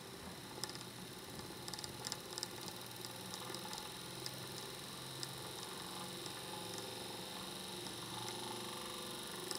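Small DC motor spinning a Newton's colour disc, running with a steady hum that grows slowly louder as its supply voltage is turned up. Scattered light clicks, bunched about two seconds in.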